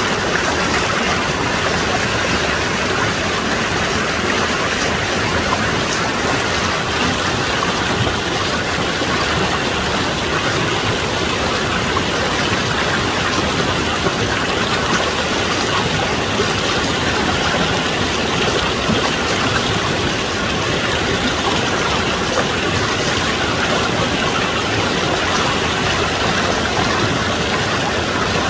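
Mountain valley stream running, a steady, even rush of water.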